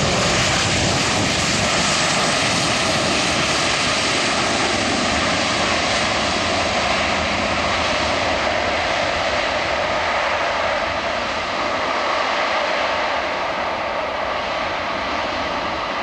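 Boeing 737-300's CFM56 turbofan engines running loud as the airliner rolls along the runway after landing, a steady jet noise with a faint whine that eases slightly as it draws away.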